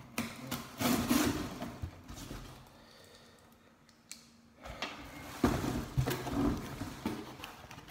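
Knife slitting the packing tape on a cardboard box, then the cardboard flaps scraping and rustling as they are pulled open. The cutting comes about a second in, and the flap handling after a quieter pause, from about five seconds in.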